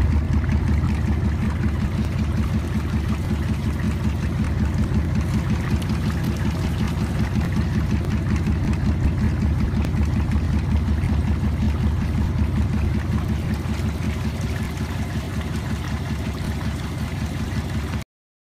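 Shaking table separating gold sand: a steady machine drone from its running drive, with water washing across the deck. It cuts off suddenly near the end.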